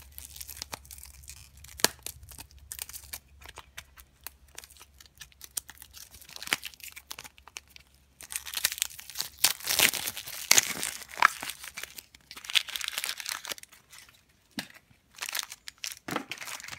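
A small foil blind bag being crinkled and torn open by hand: irregular crackling and rustling, sparse at first and busiest from about eight seconds in.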